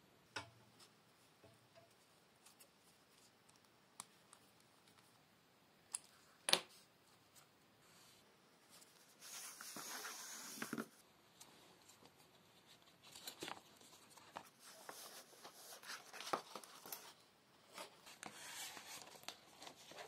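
Faint handling sounds of a leather belt: the strap rubbing and sliding against the hands and through its leather keeper, in several stretches of scratchy rustling, the longest about nine seconds in. A few sharp small clicks come before it, the loudest about six and a half seconds in.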